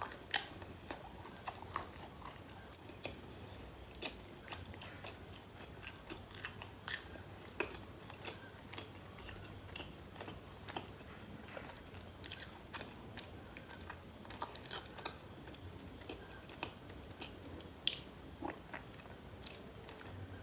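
A woman chewing a mouthful of cheese, pork-loin and pineapple pizza close to the microphone: irregular, quiet wet mouth clicks, with a few sharper ones scattered through.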